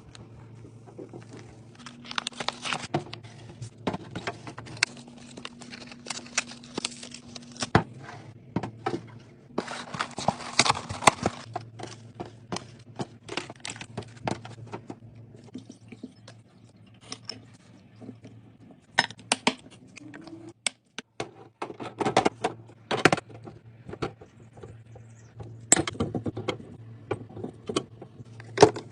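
Restocking a fridge: a run of clicks, taps and rustles as plastic containers and packaging are handled and set down, over a steady low hum that drops out briefly about two-thirds of the way through.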